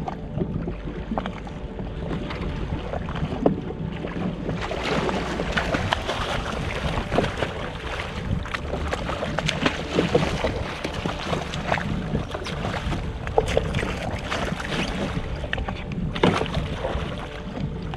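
Wind buffeting the microphone and choppy sea slapping and splashing against a jet ski's hull, with frequent sharp knocks and splashes from about four seconds in.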